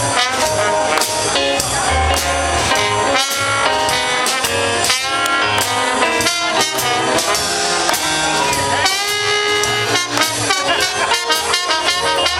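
Music with brass instruments over a steady beat.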